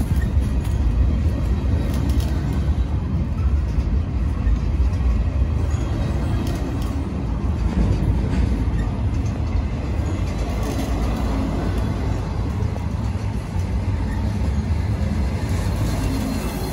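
Freight train of intermodal well cars rolling past at close range: a steady low rumble of steel wheels on the rails with scattered clicks and clanks, easing off near the end.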